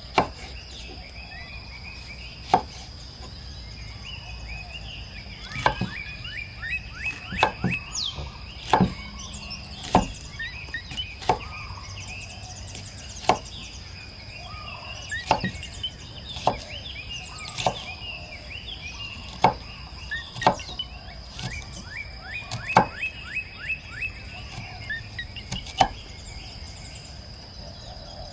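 Sharp chopping strokes, about twenty, at an uneven pace, over a steady high-pitched insect drone and scattered bird chirps.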